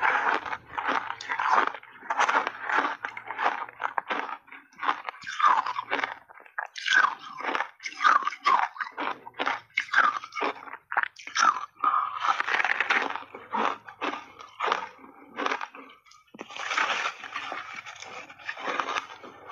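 Refrozen shaved ice being bitten and chewed in big mouthfuls close to a clip-on microphone: a fast run of crisp crunches, with short pauses between bites.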